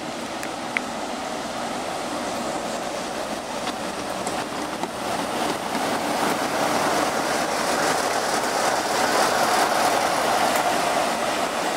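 Class 47 diesel locomotive's Sulzer twelve-cylinder engine running as the locomotive rolls slowly past, getting louder as it draws level. A single sharp click comes about a second in.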